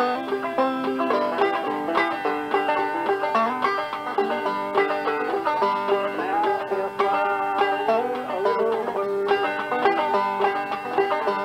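Banjo playing a tune in quick, steady picked notes.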